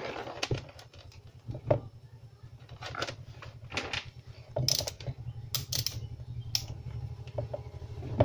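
Irregular light clicks and rattles of multimeter test probes and leads being handled on a workbench, some in quick clusters, over a low steady hum.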